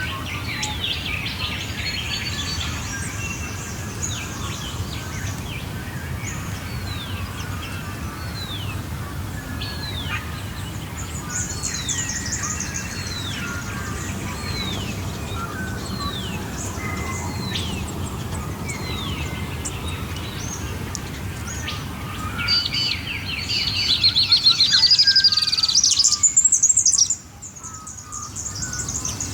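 Wild birds singing in a chorus. One bird repeats a short falling whistled note about once a second. Near the end a louder, rapid, high twittering song takes over for a few seconds, then stops abruptly.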